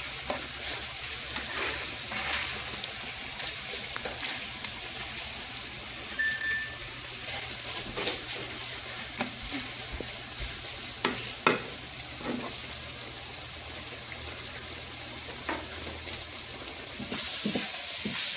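Beef sizzling in hot oil in a pan, a steady hiss broken by scattered clicks and scrapes of a utensil stirring it. The sizzle gets louder near the end.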